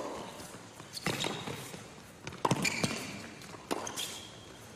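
Tennis rally: rackets strike the ball and it bounces on the hard court, a sharp pop about every second and a quarter, each with a short echo.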